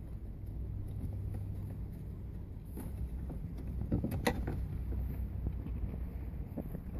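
Handling noise as the dashboard trim around the instrument cluster is worked: a low steady rumble on the microphone with a sharp plastic click about four seconds in.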